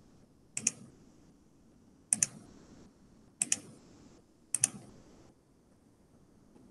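Four separate clicks of a computer's keys or buttons being pressed, each a quick double tick, about a second and a half apart, then stopping.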